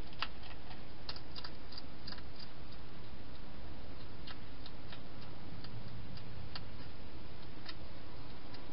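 Wild hedgehog eating from a dish inside a plastic feeding box: irregular small clicks and crunches of chewing, busiest in the first couple of seconds and then sparser, over a steady low hiss.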